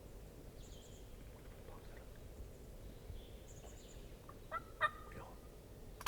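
Wild turkey gobbling close by: one short burst about four and a half seconds in, with faint small-bird chirps before it. A .410 shotgun shot goes off right at the end.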